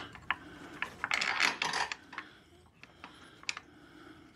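Scattered metallic clicks with a short, denser rattle about a second in, as the steel handle of a Toro Power Max HD 828 OAE two-stage snowblower is raised and worked into place so its carriage-bolt holes line up.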